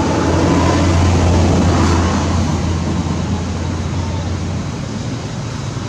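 A motor engine's low hum over a steady wash of noise, swelling in the first couple of seconds and easing off after about four seconds, like a vehicle passing.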